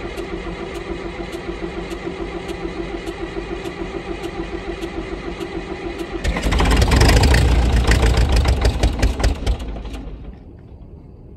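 Caterpillar D4 dozer engine during a cold start: running with a quick, even rhythmic beat, then much louder and rougher from about six seconds in. Near ten seconds it drops away sharply to a low, quiet sound.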